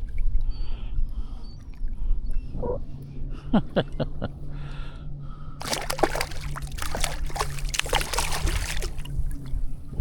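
A hooked trout splashing at the water's surface while being played beside a kayak, with scattered splashes early on and about three seconds of heavy thrashing past the middle.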